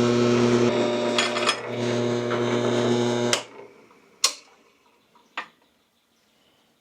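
Drill press running as it drills through a heavy steel bracket with a cutting-oiled bit: a steady motor hum that stops about three and a half seconds in. Two sharp knocks follow, about a second apart.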